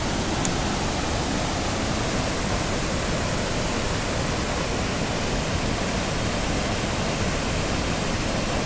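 Waterfall and rapids: a steady rush of water pouring over rock ledges into white water.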